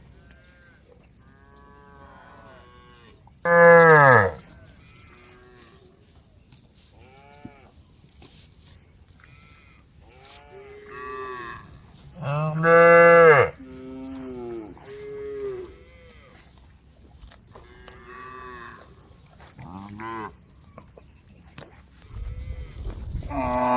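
A herd of cattle mooing, many calls from several cows at different distances. Two loud moos come about 4 and 13 seconds in, with fainter calls between, and another loud one starts at the very end.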